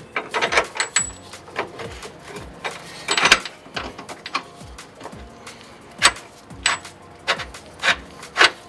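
Metal clinks and knocks of a suspension bolt and upper control arm being handled and worked into place on a coilover, a scatter of sharp clicks with a couple of louder knocks. Background music with a steady beat runs underneath.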